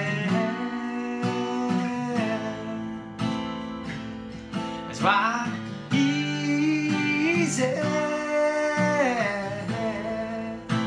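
Taylor acoustic guitar strummed in a steady rhythm, with a man's voice singing a wordless line over it about halfway through and again shortly after.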